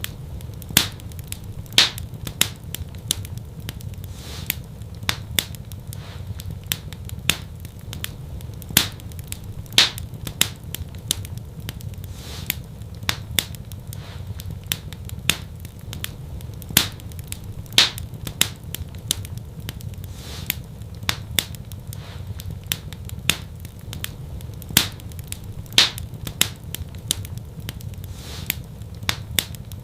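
Wood fire crackling in a fireplace: irregular sharp pops and snaps, a louder one every second or two, over a steady low rumble of the flames.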